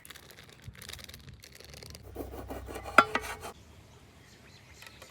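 Kitchen handling noises while spices are added to a chicken marinade: light rustling and scraping, with one sharp clink about three seconds in.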